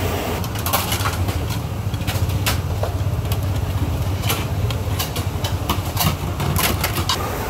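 Stacked melamine plates clattering as they are handled and set down: many sharp clacks, some in quick clusters, over a steady low rumble.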